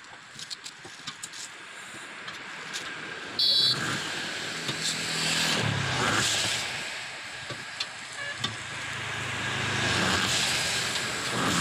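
Road traffic passing: two swells of engine and tyre noise that build, peak and fade, one around the middle and one near the end. About three and a half seconds in there is a brief, loud, high-pitched beep. In the first few seconds a steel tyre lever on a tractor tyre bead makes scattered light clicks and knocks.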